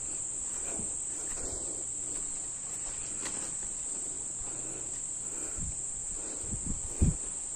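Crickets trilling steadily at night, a continuous high-pitched chirring. Soft close rustles and bumps come through underneath, with one louder thump about seven seconds in.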